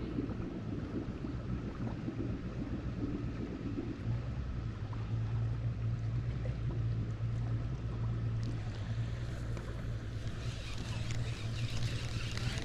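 A steady low rumble with no clear source throughout. From about ten seconds in, the fine ticking whir of a spinning reel being cranked to retrieve the line.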